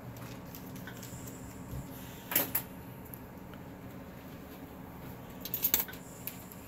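Short clicks and knocks of surgical instruments being handled on the drapes, once about two and a half seconds in and again as a quick cluster near the end, over a steady low hum of operating-room equipment.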